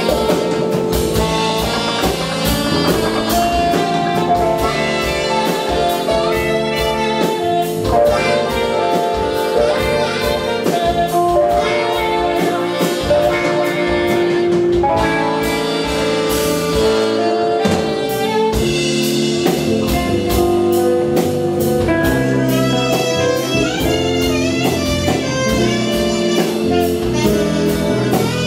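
Live band playing: a horn section of saxophones and trumpets over drum kit, guitar and keyboard, with a steady drum beat.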